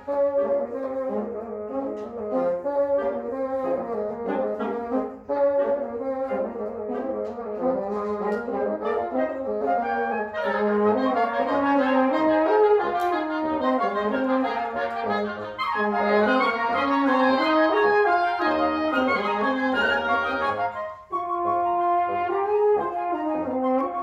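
Woodwind quintet playing live: flute, oboe, clarinet, French horn and bassoon, several lines moving together. The music breaks off briefly about five seconds in and again about 21 seconds in, then carries on.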